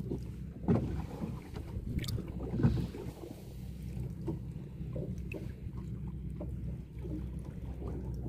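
Water splashing in a shallow plastic-lined tub as a hand grabs for a small live cobia, with a few sudden splashes and knocks, the loudest about a second in and again near three seconds. Under it runs a steady low motor hum.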